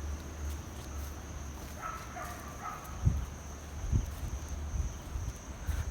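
A steady high-pitched insect chirring runs throughout over a low rumble, with faint distant voices about two seconds in and two dull thumps around three and four seconds in.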